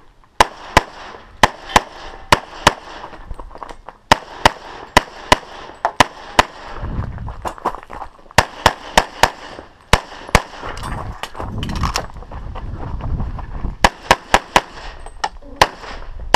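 Rapid pistol fire from a .40 S&W EAA/Tanfoglio Witness Elite Match: a long string of sharp shots, many in quick pairs about a third of a second apart. The string breaks off twice for a few seconds.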